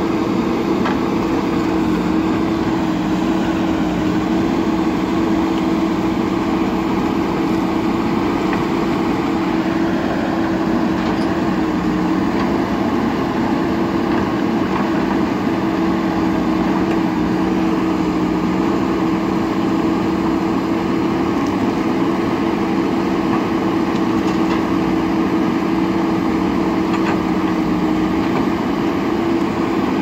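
JCB 3DX backhoe loader's diesel engine running steadily as the backhoe digs, a constant drone that holds one pitch throughout.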